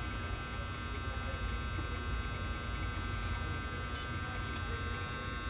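Steady electrical hum with a low rumble underneath, and a short high electronic chirp about four seconds in.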